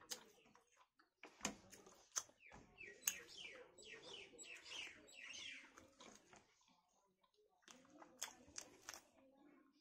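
A bird calling: a quick run of about eight falling chirps, from about two and a half to six seconds in. Faint clicks and smacks of people eating with their hands come and go around it.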